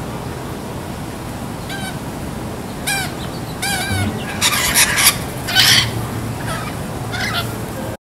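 Rainbow lorikeets calling: short, repeated chirping calls from about two seconds in, turning harsher and louder between four and six seconds, over a steady background hiss.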